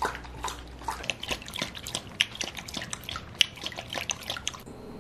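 Siberian husky lapping water from a bowl: quick, irregular wet laps and splashes, several a second.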